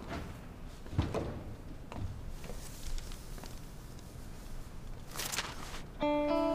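A few soft, scattered knocks and clicks with a brief hiss about five seconds in; near the end, music of sustained plucked, guitar-like notes comes in.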